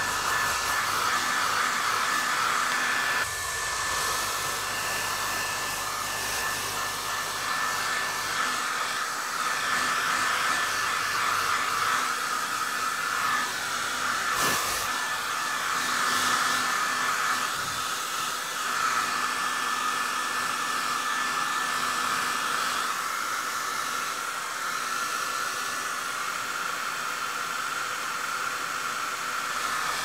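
Hair dryer running steadily: an even rush of blown air with a constant high whine from its fan motor.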